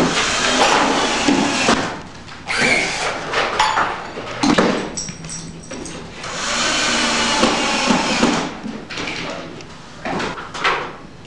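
Workshop building noises as wood and scrap parts are handled: several rasping, noisy stretches a second or two long, with knocks in between.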